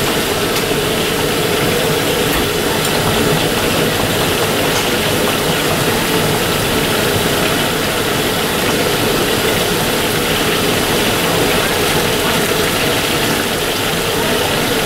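Fish deep-frying in a wok of hot oil, a steady dense sizzle, over a steady mechanical drone from the kitchen's wok burner and extraction hood.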